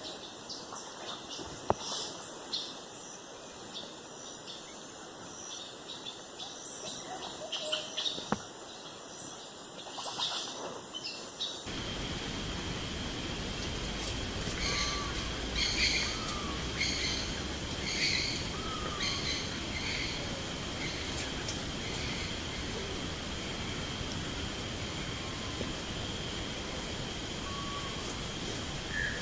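Wild birds chirping and calling over outdoor ambience, with a couple of sharp clicks in the first part. About twelve seconds in, the background changes abruptly to a louder hiss with a steady high tone, and a run of repeated bird calls follows.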